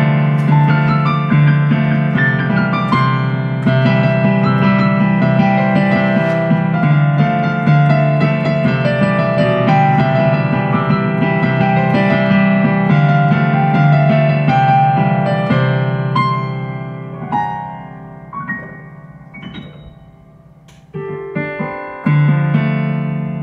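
Digital piano played with both hands in a busy, continuous passage of notes. About two-thirds of the way through the playing thins and softens to a few quiet notes, then loud notes come back near the end.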